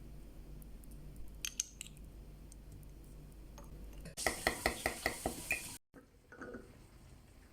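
A metal spoon clinking quickly against dishware, about five strikes a second for a second and a half, cut off abruptly, after a few light clicks earlier on.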